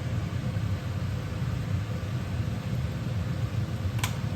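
Steady low rumbling noise, with two short clicks near the end.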